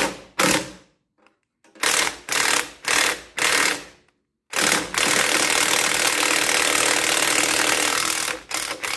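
A 20-volt cordless impact wrench hammering on a rusted bolt inside a tractor's battery box, trying to break it loose. It starts with several short bursts of a fraction of a second each, then runs hard and steady for about four seconds from halfway through to near the end.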